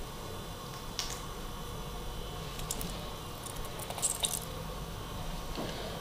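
Soft squishy clicks and crackles of a wooden toothpick being pushed through the cut-off cap into a wet raw potato and the potato being handled, a few small sounds scattered through the stretch over a faint steady hum.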